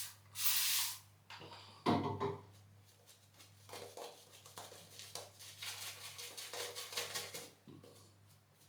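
One short spritz from a spray bottle near the start. From about three and a half seconds in comes a run of quick, short strokes of a Christopher Bradley Karve safety razor scraping stubble through lather.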